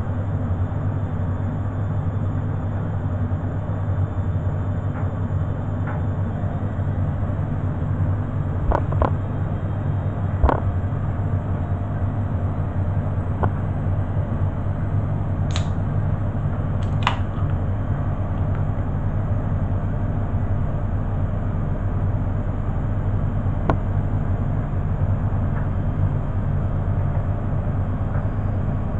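Beko front-loading washing machine running steadily near the end of its cycle with a low, even hum. A few sharp clicks are scattered through it.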